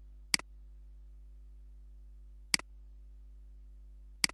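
Computer mouse clicks: three separate clicks a second or two apart, each a sharp press followed at once by a fainter release, over a steady low electrical hum.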